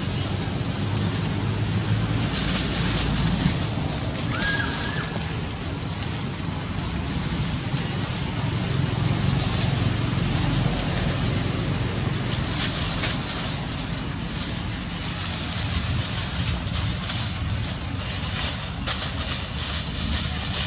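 Dry leaf litter rustling and crackling as monkeys scuffle and roll about in it, with a steady low rumble underneath.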